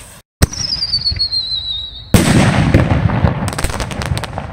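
A Whistling Buster mortar shell fires from its launch tube with a sharp crack, then whistles in flight for under two seconds with a slowly falling pitch. It bursts with a loud bang, followed by crackling and a quick run of sharp pops.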